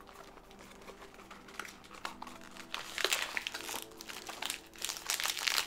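Crinkling of a blind box's foil inner bag being handled. It is faint at first and grows loud in several bouts from about three seconds in.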